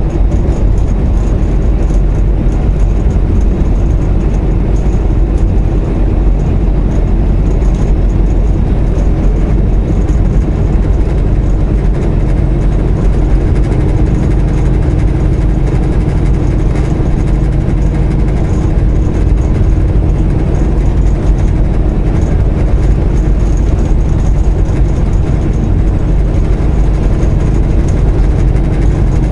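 Semi truck's diesel engine running steadily at highway cruising speed, with tyre and road noise, heard from inside the cab. A low, even drone with a steady hum and no changes.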